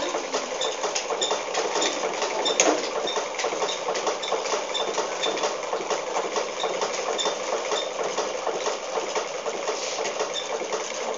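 Sewing machine running steadily at speed, its needle stitching rapidly, with a light high tick about twice a second and one sharp click a little before the middle.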